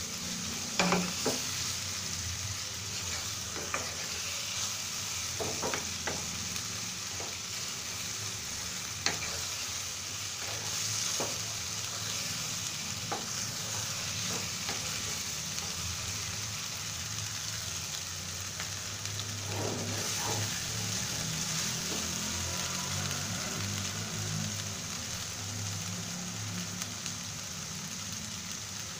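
Onions and spice pastes sizzling in oil in a nonstick karahi, stirred and scraped with a wooden spoon, with scattered light knocks of the spoon against the pan. This is the masala being fried down (koshano) before the liver goes in.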